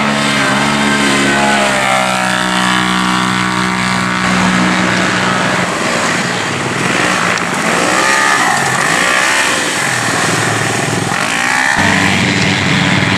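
Several UTV race engines running hard, revving up and down so the pitch keeps rising and falling as the side-by-sides race and pass. About 12 seconds in, a lower, steadier engine note takes over.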